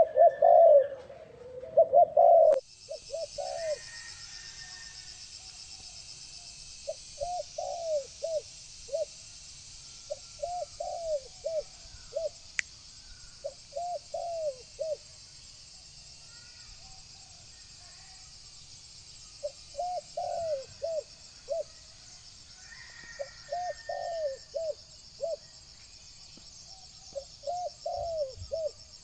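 Spotted dove cooing: short phrases of several low, rounded coos, repeated every few seconds, over a steady high-pitched hiss. The first few coos are louder, and the sound changes abruptly about two and a half seconds in.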